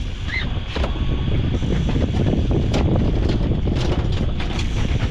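Wind buffeting the microphone over the steady running of a boat's outboard motors at trolling speed, with a few sharp clicks and knocks.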